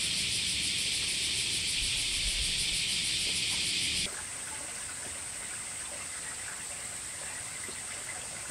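Steady outdoor hiss of ambient noise with no distinct events, dropping noticeably in level about four seconds in and continuing quieter.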